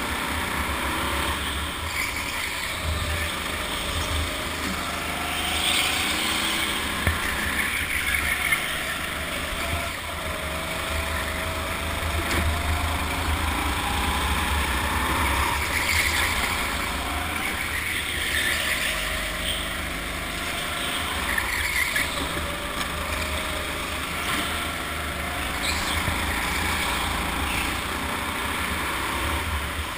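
Go-kart driven hard around a track, heard from the driver's seat: a steady rush of motor and road noise, with a motor note that rises and falls as the kart speeds up and slows for the corners.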